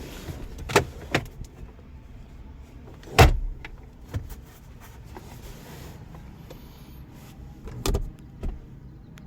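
A handful of sharp knocks and clunks, the loudest about three seconds in and two more near the end, over a low steady hum.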